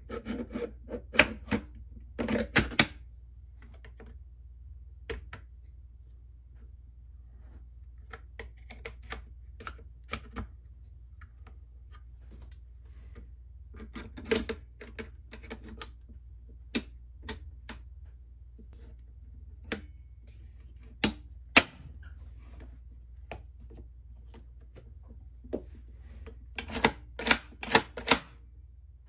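Sharp metal clicks and clacks from reassembling a Century Arms Draco NAk9X AK pistol by hand: the recoil spring guide rod and the rail-topped dust cover being fitted back onto the receiver. The clicks come in scattered clusters, with a quick run of them near the end.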